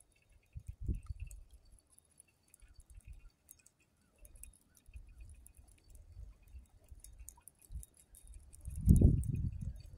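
Wind buffeting the microphone in uneven gusts, the strongest a little before the end, with faint small ticking from a spinning reel being cranked to retrieve the line.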